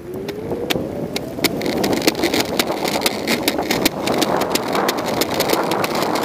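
Huger Tech Racer electric skateboard accelerating at full throttle in normal mode. Its dual hub motors whine, rising in pitch over the first second or so, over the rumble of the 90 mm wheels on a concrete sidewalk. A sharp click sounds each time the wheels roll over a sidewalk crack, and the clicks come faster as the board gains speed.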